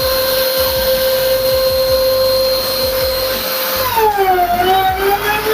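CNC router spindle running with a steady high whine while it mills a roughing pass. About four seconds in, the pitch drops briefly and then climbs back.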